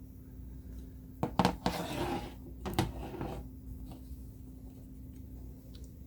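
Small plastic transforming toy jets being handled and set down on a hard surface: a few sharp clicks and knocks with a brief scrape, about one to three seconds in, over a faint steady hum.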